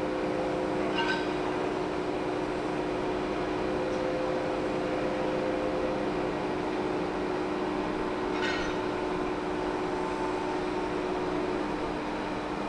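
Steady machinery hum with a few constant tones, broken by two brief high squeaks, about a second in and again around eight seconds in.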